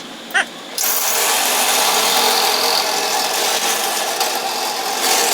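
A power tool working a piece with a harsh, steady noise that starts suddenly about a second in, after a short chirp.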